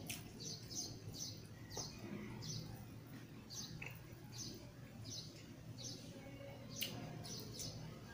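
A small bird chirping over and over, a couple of short high chirps a second, with a steady low hum underneath and a single sharp click near the end.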